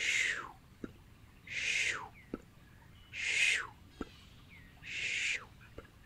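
Breathy whispered mouth sounds, a soft blown 'hoo' with a falling pitch, repeated four times about every second and a half, with faint clicks in between.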